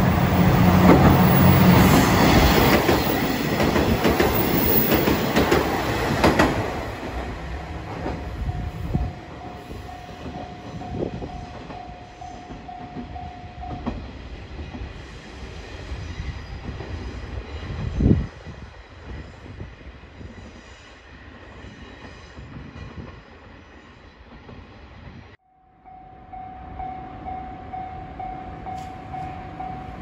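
A train passing close by, with loud rumble and clatter of wheels on rails for the first six seconds or so, then fading away. A level-crossing warning bell rings on one steady tone for several seconds, stops, and starts again after a brief break near the end.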